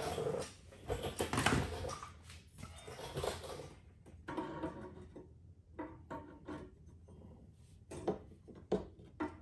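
Hand handling noises as a metal ATV foot peg is fitted to a footwell. Rustling and scraping for the first four seconds or so, then scattered light clicks and knocks of metal parts.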